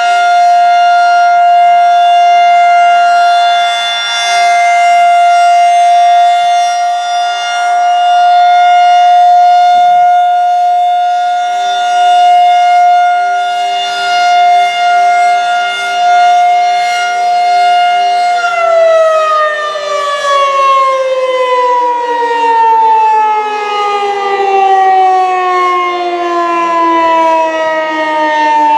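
Federal Signal 2001-130 outdoor warning siren sounding a steady Alert tone on its monthly test. About two-thirds of the way through, the tone stops holding and winds down, its pitch falling steadily.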